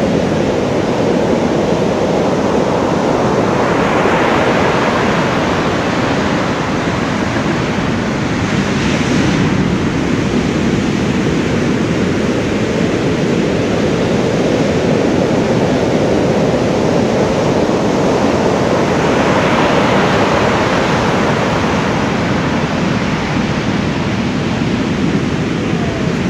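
Heavy surf breaking on the shore: a steady wash of whitewater that swells up twice as big waves crash, a few seconds in and again about two-thirds of the way through.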